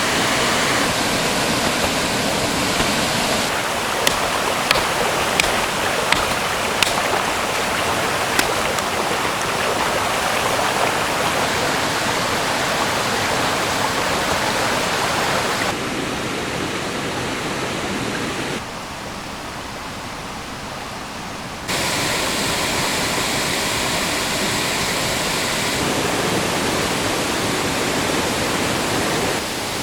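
Small stream flowing: a steady rushing of water, softer for a few seconds in the middle. About half a dozen sharp clicks or cracks stand out between about 4 and 8 seconds in.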